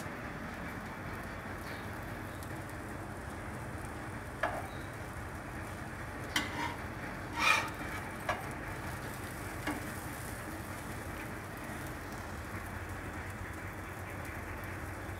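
Egg-coated bread slices sizzling steadily on a flat griddle (tawa), with a few sharp clicks and scrapes of a metal spatula against the pan as the slices are turned, the loudest about halfway through.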